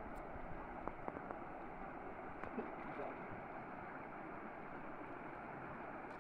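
Steady rush of flowing river water, with a few faint clicks about a second in.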